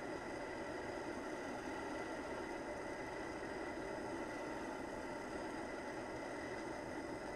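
Propane torch burning with a steady, even hiss while its flame heats a small steel part held in needle-nose pliers.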